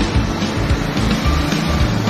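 Background music with a strong bass line.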